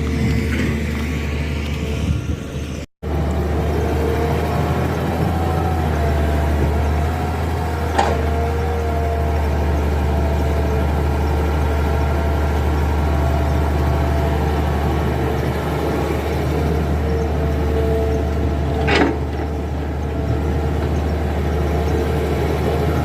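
Heavy diesel machinery running steadily during excavator loading, with a constant low hum and a wavering whine above it. Two sharp knocks sound several seconds apart, and the sound cuts out for an instant near the start.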